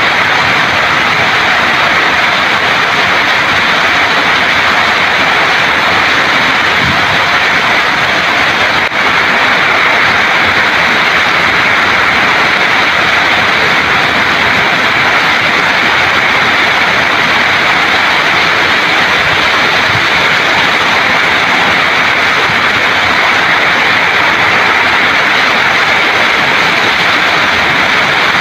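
Heavy monsoon rain falling on a flooded lawn and paving: a loud, steady, dense hiss of the downpour, with a momentary dip about nine seconds in.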